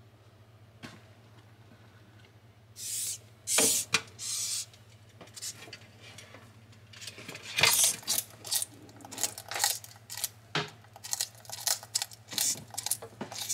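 A bearded dragon biting into a live giant horned hisser cockroach: a few short hissing bursts about three to four seconds in, then, from about halfway, a quick series of crisp crunches as its jaws work on the roach's shell.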